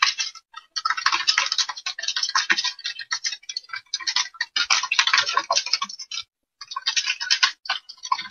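Rapid, irregular clicking of a computer mouse, many clicks a second, with brief pauses about half a second in and just after six seconds.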